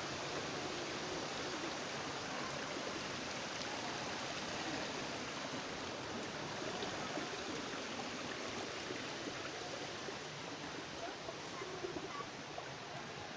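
Small waterfall splashing over rocks: a steady rush of falling water, easing slightly in the last few seconds.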